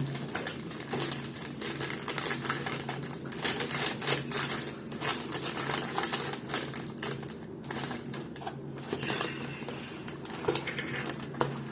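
Paper and plastic food packaging crinkling and rustling as it is unwrapped and handled, a dense run of irregular crackles, over a steady low hum.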